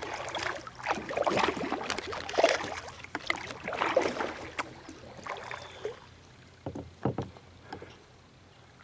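Kayak paddle strokes: water swishing and splashing off the paddle blades about once every second or so, fading after about six seconds, followed by two sharp knocks close together.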